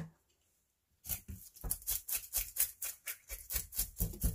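Scales being scraped off a surfperch in quick, rasping strokes, about six a second, starting about a second in.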